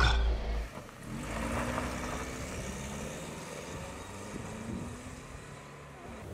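A car engine running, heard briefly from inside the cabin as the car is put in gear, then a car driving away along a dirt road, its engine fading into the distance.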